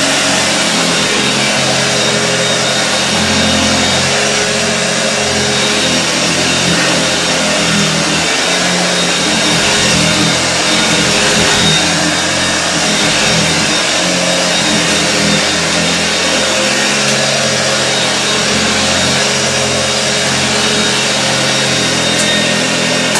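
Hoover Junior 1346 upright vacuum running steadily while being pushed over carpet, its beater bar sweeping up ground-in salt; the motor is switched off right at the end and begins to wind down. The motor sounds lower-pitched than a Junior should, which the owner thinks may mean it is not the original motor.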